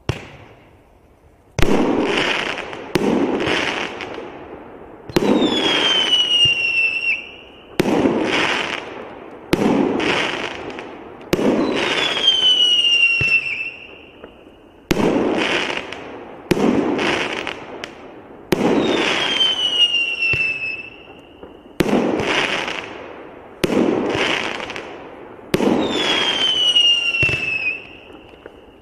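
A 19-shot, 1.2-inch consumer firework cake (PD7190 'Fluidy') firing its shots one after another, a sharp report every one and a half to three seconds, each fading over a second or so. Four of the shots carry a falling whistle lasting about a second and a half.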